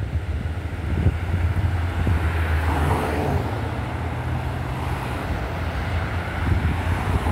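Road traffic crossing a railroad grade crossing: cars and SUVs driving past one after another, engine and tyre noise swelling about three seconds in as a vehicle passes close by, over a steady low rumble.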